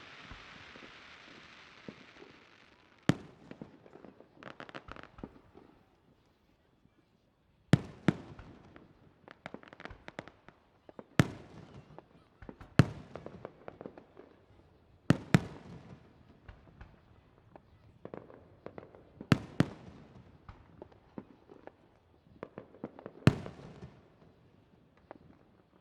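Aerial firework shells bursting with sharp, loud bangs every few seconds, some in quick pairs, each followed by a spell of crackling. A fading crackle-hiss from an earlier burst opens the stretch.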